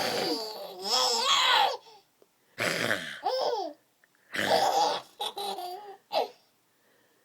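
Laughing and silly vocal noises in about five bursts, the pitch sliding up and down, stopping a little after six seconds in.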